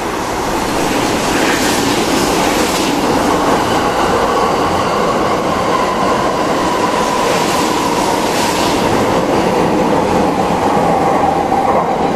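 JR East E001-series TRAIN SUITE Shiki-shima passing through a station without stopping: a loud, steady running noise of wheels on rail, with a thin whine that slowly falls in pitch as the cars go by.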